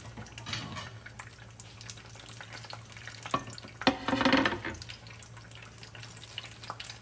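Battered banana fritters frying in shallow oil in a nonstick pan over low heat: a steady soft crackling of the oil with scattered small pops. A sharp click and a brief louder burst come about four seconds in.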